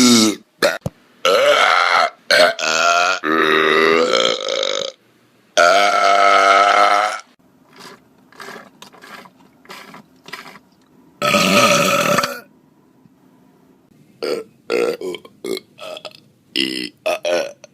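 People belching loudly, one clip after another. First comes a run of long, drawn-out burps of a second or more each, then a few faint short sounds, another loud belch about twelve seconds in, and a quick string of short burps near the end.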